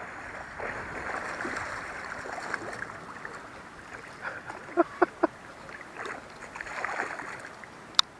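Shallow river water sloshing and splashing as a stringer of white bass is dragged through it, with fish thrashing at the surface. A few quick sharp splashes come about five seconds in, and a single sharp click near the end.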